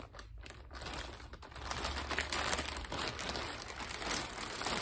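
Plastic mailer bag crinkling and rustling in irregular crackles as it is pulled open by hand.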